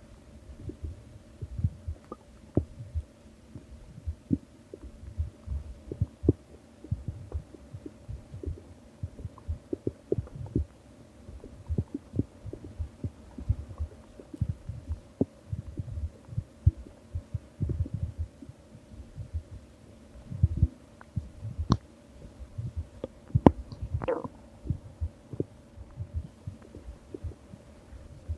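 Stomach growling and gurgling: a long run of short, irregular low gurgles and pops over a faint steady hum. About 24 s in comes one longer, higher-pitched squeaky gurgle.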